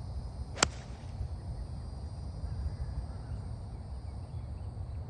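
A golf club strikes the ball once, a single sharp crack about half a second in, over a steady low rumble of wind on the microphone.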